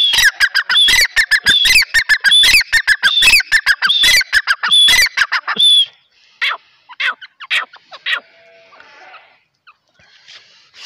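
Grey francolin calling in a loud, fast run of shrill repeated notes, about four a second, which breaks off about six seconds in, followed by a few fainter notes. A person's short steady whistle sounds at the start and again about five seconds in.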